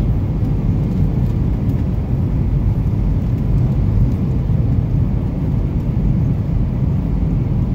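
Steady, low roar inside a jet airliner's cabin on landing approach: engine and airflow noise heard from a window seat.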